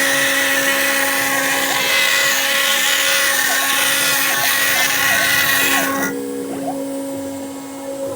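CNC router spindle cutting plastic: a loud, dense high-pitched cutting noise over a steady whine. The cutting noise stops abruptly about six seconds in, leaving the spindle's steady whine running.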